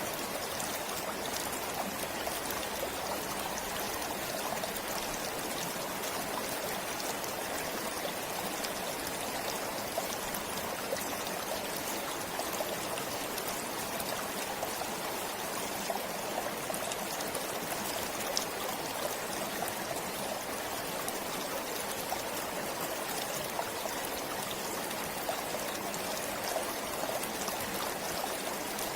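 Forest stream flowing steadily: an even rush of water with many small splashes and trickles.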